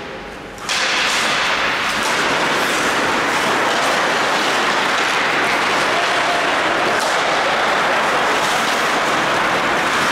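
Ice hockey game in play: a steady hiss of rink noise, typical of skates cutting the ice, that comes up suddenly about a second in, with a few sharp clacks of sticks or puck.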